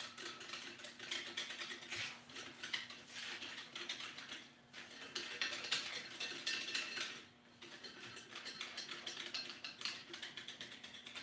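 Irregular, rapid metallic clicking and ticking of hand tools at work, several clicks a second, with two brief lulls, over a faint steady hum.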